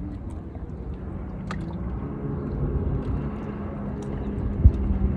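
Wind rumbling on the microphone, with the steady drone of a motorboat engine out on the water. A single sharp knock comes near the end.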